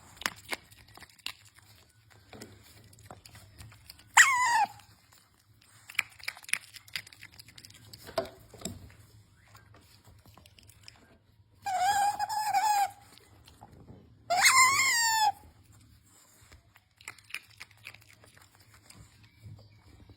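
Pet otter squealing for treats: three loud high-pitched calls, a short falling one about four seconds in, a longer held one near the middle, and a rising-then-falling one soon after. Small clicks and taps sound between the calls.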